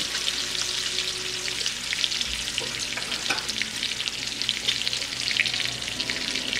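Strips of bacon frying in a skillet: a steady sizzle of rendering fat, dotted all through with small pops and crackles.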